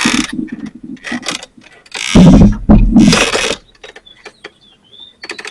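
Metal gate and fence hardware clicking and rattling as it is handled under tension, with two louder rasping scrapes about two and three seconds in.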